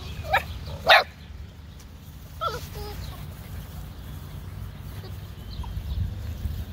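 Silver Labrador puppies giving two short, sharp barks in the first second, the second the loudest, then a couple of thin whiny yips a little later, over a steady low rumble.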